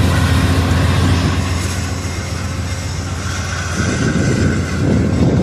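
Amtrak train departing: the diesel engine of its GE P42DC Genesis locomotive runs with a steady low hum as the passenger cars roll past on the rails.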